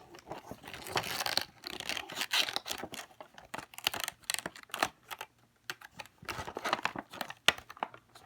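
Hot Wheels cardboard-and-plastic packaging being torn and pulled open by hand: irregular tearing, crinkling and sharp clicks.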